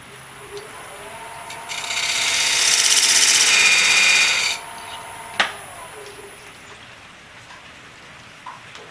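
Wood lathe spinning up, then a tool or abrasive rubbing against the spinning black walnut coaster blank for about three seconds. A sharp click follows, and the lathe winds down.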